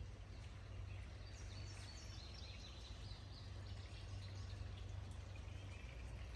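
Outdoor ambience: a bird sings a quick run of short, high chirping notes from about one to four seconds in, with fainter calls after, over a steady low rumble.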